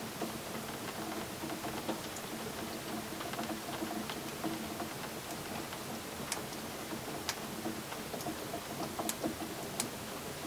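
Rain running off the roof, making a steady rattling patter with scattered sharp ticks.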